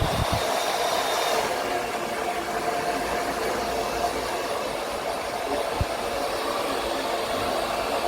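Handheld hair dryer running steadily, a continuous rush of air with a motor hum, with a thin high whine that stops about a second and a half in and a single soft knock near the end.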